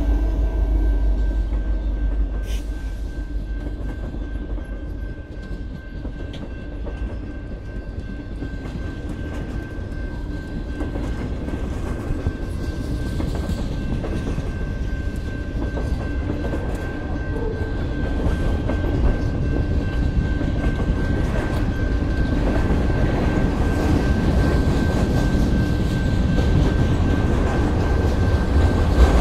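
Kansas City Southern freight train's loaded flatcars rolling past over the rails: a steady rumble with wheel clatter that grows louder through the second half.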